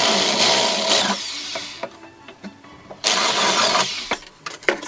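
Power drill boring through the wall of a PVC pipe, running in two spells of about a second each, the second starting about three seconds in.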